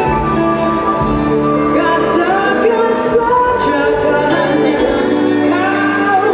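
Live jazz-pop band: a woman sings into a microphone over bass guitar and drums, with cymbal strikes.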